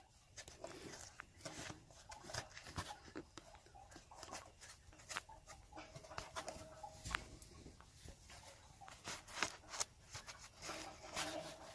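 Faint, scattered rubbing and light clicks of a rusty metal fitting on top of a water heater being cleaned and wiped dry by hand.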